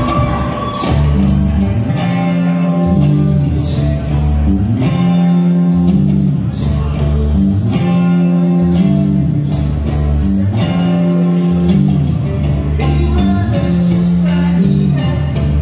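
Live rock band playing: electric guitars, bass guitar, drum kit and keyboard, with a singer on a microphone. A bass riff repeats with a cymbal crash about every three seconds.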